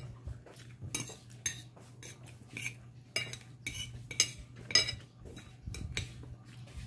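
Cutlery clinking and scraping against a glass plate while eating: a dozen or so sharp clinks with a short ring, scattered irregularly, the loudest about four and five seconds in.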